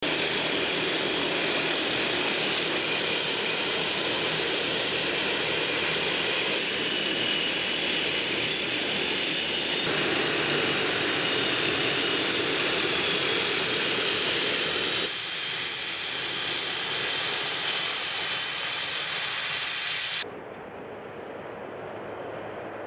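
Tu-95MS bombers' Kuznetsov NK-12 turboprop engines running on the ground, a loud steady turbine whine and hiss over propeller noise. About twenty seconds in it drops suddenly to a quieter, duller sound.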